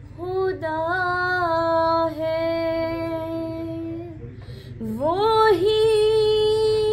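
A woman singing an Urdu devotional hamd, drawing out the sung syllables. She holds one long note for about four seconds, breaks briefly, then glides upward into another held note.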